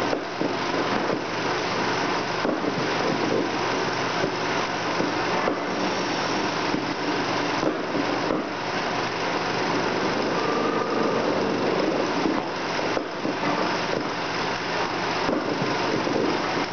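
Four 16mm film projectors running at once: a steady mechanical whir and rattle of their motors and film transports.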